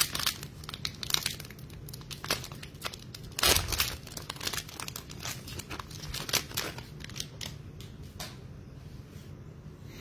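Foil wrapper of a Select Draft Picks football card pack crinkling and tearing as it is ripped open and the cards are pulled out. The loudest rip comes about three and a half seconds in, and the crinkling dies down after about eight seconds.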